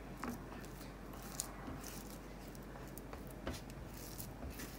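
Faint scraping and a few light taps of a silicone spatula pushing thick, cooling coconut barfi mixture across a nonstick frying pan as it is split into two portions.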